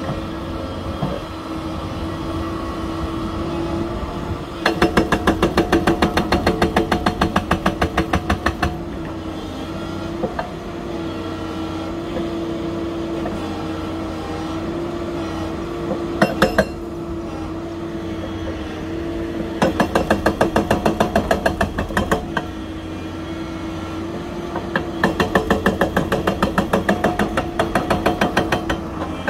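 Hydraulic rock breaker on a Doosan DX225LCA excavator hammering into a rock face in three bursts of rapid blows lasting a few seconds each, with a brief burst between them. Under the hammering, the excavator's diesel engine runs steadily.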